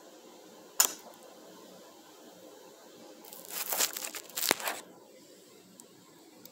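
Small metal measuring tool handled against a cylinder head: one sharp click, then a second and a half later a burst of scraping and rattling with another sharp click in it.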